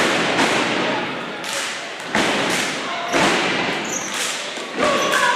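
A basketball being dribbled on a hardwood gym floor, a sharp thud about once a second, over the chatter of the gym crowd.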